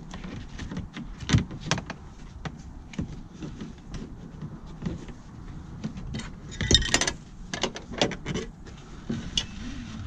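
Dodge Challenger seat belt assembly, retractor and pretensioner, being handled and pulled out of the car: scattered clicks, knocks and rattles of its metal parts, with a louder clatter about seven seconds in.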